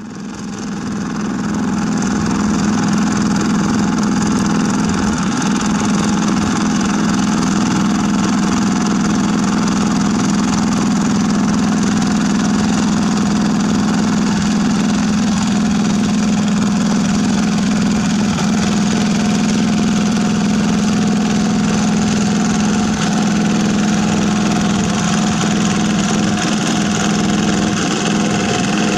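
Single-cylinder diesel engine of a Yanmar walking tractor running steadily as it works a muddy paddy field, fading in over the first two seconds.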